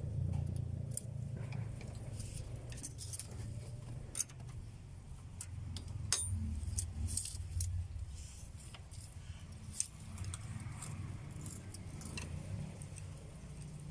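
Metal hand tools clinking and tapping against engine parts at irregular moments, over a steady low hum, while the valves of a Suzuki F6A engine are being adjusted.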